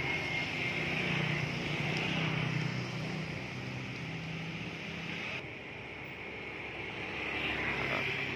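Steady traffic noise from motor vehicles running past on a town street, dipping a little about five seconds in.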